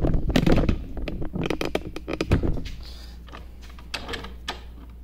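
A quick run of clicks, knocks and scrapes from handling, dense for the first two and a half seconds, then two isolated clicks near the end.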